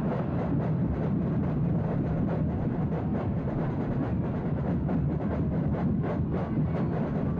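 Football stadium crowd roaring, a loud, dense and steady din, with supporters' drums beating irregularly through it.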